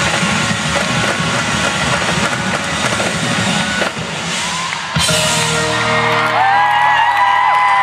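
Live band with drum kits playing loudly, heard from far back in an arena audience. About five seconds in, the dense drumming gives way to long held notes that slide down near the end.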